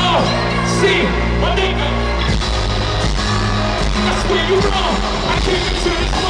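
Live hip-hop played loud over an arena sound system and heard from the seats. A deep bass line changes note a few times under a rapper's amplified vocal.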